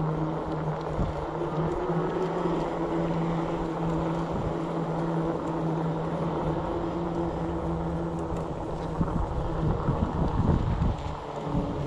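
Electric bike motor humming at a steady pitch while riding under power. About nine seconds in the hum drops away and wind buffets the microphone.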